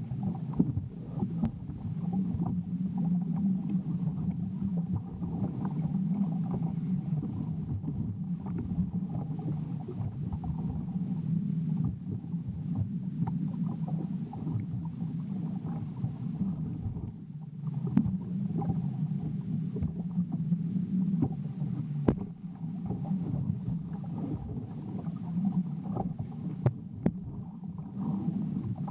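Jet ski engine running at a steady pitch, with a few sharp knocks.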